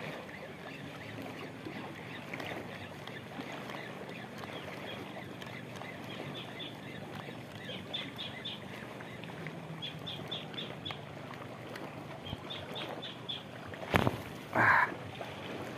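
Small choppy sea waves washing and lapping steadily around a wading angler. Through the middle come quick groups of short high chirps, and near the end there is a sharp knock followed by a loud rustling splash close to the microphone.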